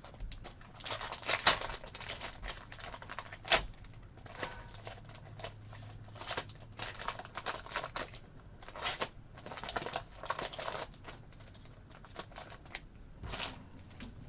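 Trading cards and their foil packs being handled: irregular bursts of clicking and rustling as cards are flicked and slid past one another, with a couple of sharper clicks in the first few seconds.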